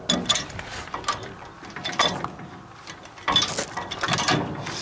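Metal clanks and scraping as a Lewis chainsaw winch's frame is slid and seated onto a steel trailer-mount bracket: a string of irregular knocks, busiest about two seconds in and again from about three seconds on.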